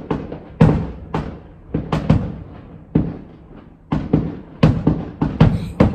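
Fireworks going off: a string of sharp bangs, about a dozen irregularly spaced, each with a short echo.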